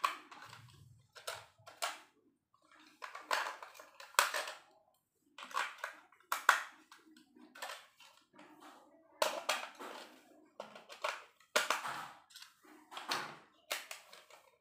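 Irregular plastic clicks and knocks from AA batteries being taken out and fitted into a toy remote-control car and its handheld remote.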